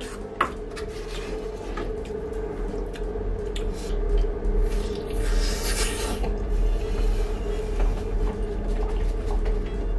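A spoon scraping against a ceramic bowl, with a sharp clink about half a second in. This is followed by mouth and eating sounds, including a noisy slurp of about a second near the middle, over soft background music with a steady held note and bass.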